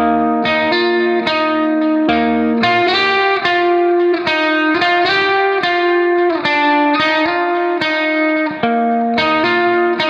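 Background music: a tune of plucked notes in a steady run, each starting sharply and fading.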